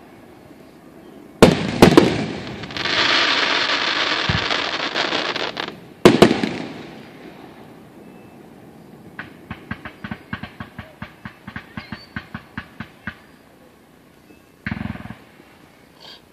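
Fireworks display. A loud shell burst comes about a second and a half in, followed by about three seconds of steady rushing hiss, and a second loud burst about six seconds in. From about nine to thirteen seconds a rapid string of sharp crackling pops follows, about four or five a second.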